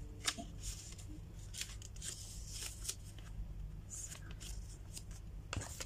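Folded paper leaflet being unfolded and handled: a string of short, crisp rustles and crinkles, over a low steady hum.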